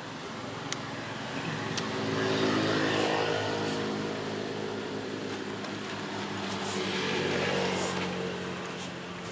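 A motor vehicle engine running at a steady pitch. It grows louder about three seconds in and again near the end.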